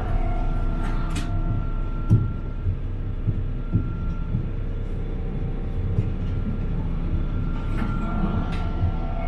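Iyo Railway streetcar running on street track, heard from inside the driver's cab: a steady low rumble of wheels on rail under a thin steady whine, with a few short sharp knocks, the loudest about two seconds in.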